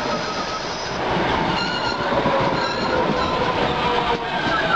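MBTA Red Line subway train rolling past close by: steady wheel and rail noise with a faint whine over it.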